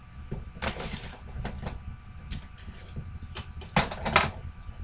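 Someone rummaging for a coloring book: small knocks, clicks and rustles of things being moved about, with a louder scraping shuffle about a second in and another near the end.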